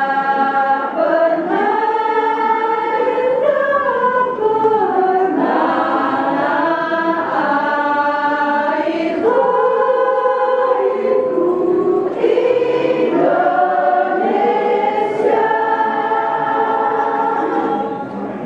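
A women's choir singing in harmony, with long held notes. The singing falls away just before the end.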